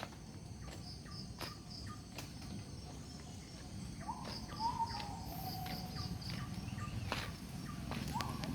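Crickets and other insects chirping, a high note pulsing about three times a second over a steady high drone. From about four seconds in, a bird calls with short sliding whistled notes, and a few sharp clicks come and go.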